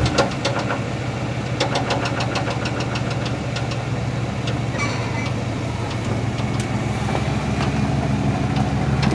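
1973 Chevrolet C10's 350 small-block V8 idling steadily with a repeated knock from the engine. The seller calls it a bad rod bearing; the owner is not sure, since the knock comes and goes and did not change when each spark plug wire was pulled.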